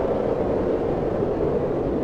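Strong wind blowing steadily, a deep even rush.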